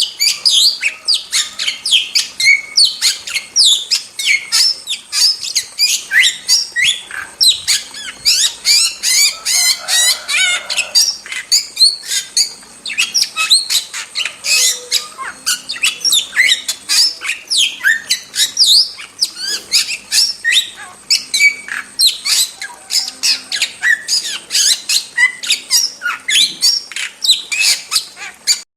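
Starling singing non-stop: a dense, fast stream of harsh squawks, chirps and whistles, with a quick rattling trill about ten seconds in.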